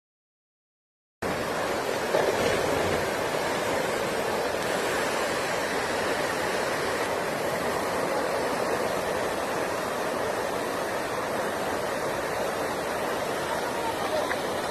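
Guadalevín river in flood, fast brown water rushing steadily; the sound cuts in abruptly about a second in.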